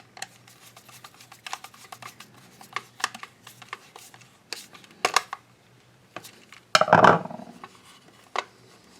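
Hands working a wall socket outlet and its wires: scattered small plastic and metal clicks and knocks, with a louder, longer handling noise about seven seconds in.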